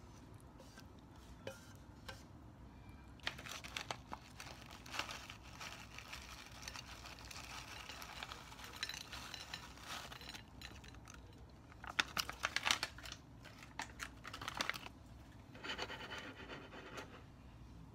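Clear plastic package of shredded cheese crinkling and rustling as the cheese is shaken out onto a plate of spaghetti, faint, with scattered small crackles and a denser burst of crackling about twelve seconds in.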